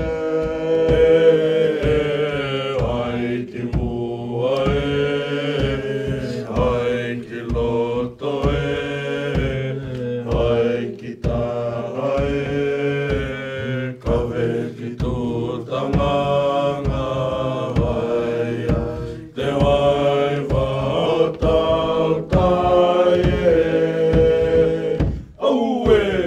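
Tokelau pehe (traditional song) chanted in unison by a group of boys and young men, long held notes with short breaks between the lines.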